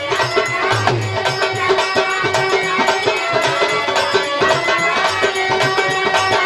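Instrumental interlude of Indian folk music: harmonium holding steady notes over dholak hand-drum beats, with no singing.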